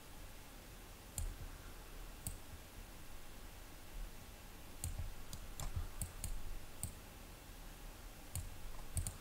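Computer mouse clicking: about ten faint, sharp single clicks at irregular intervals, over a quiet steady room background.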